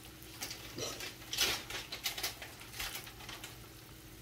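Plastic bag of chicken breast strips crinkling and rustling in short, irregular bursts as it is opened and handled, over a faint steady hum.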